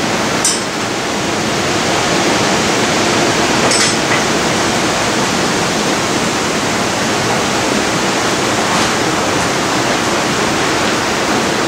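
Steady, loud rushing hiss with no pitch, unchanged throughout, with two faint clicks about half a second and about four seconds in.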